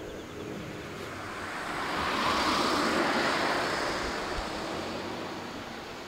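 A vehicle passing by: a noise without distinct tones that swells to a peak a couple of seconds in and then fades away.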